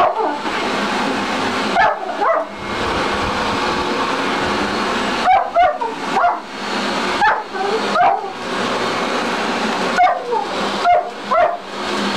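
German Shepherd barking at a running upright vacuum cleaner, about ten short barks in clusters over the vacuum motor's steady drone.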